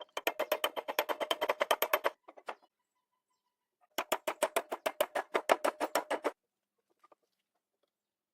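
Rapid, evenly spaced clicking, about eight clicks a second, in two runs of about two seconds each with a pause between.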